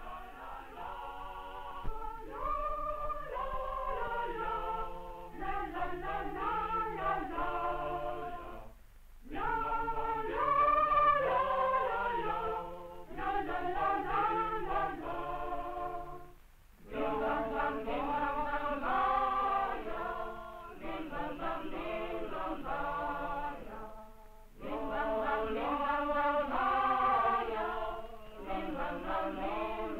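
A choir of voices singing, unaccompanied or nearly so, in long phrases broken by three brief pauses.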